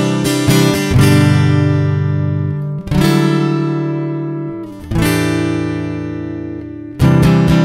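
Acoustic guitar with no voice: a couple of quick strums, then three chords about two seconds apart, each left to ring and fade. Steady rhythmic strumming starts again near the end.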